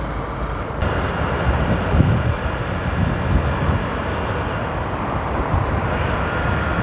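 Motorcycle riding at speed in highway traffic: wind rushing over the microphone with engine and road noise, getting louder about a second in.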